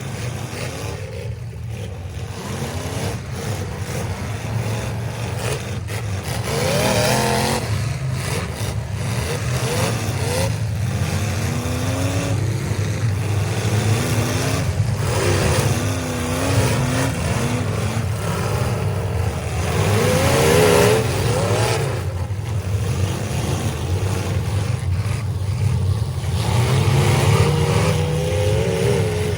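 Several demolition derby cars' engines running and revving up and down together, with a few short knocks from impacts.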